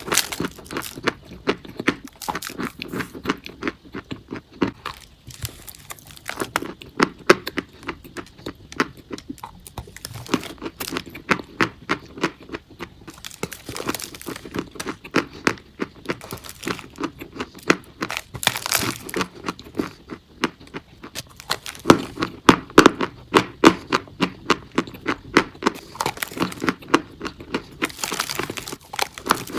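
Chalk being bitten and chewed close to the microphone: dense, irregular crunching with many sharp cracks and crumbles.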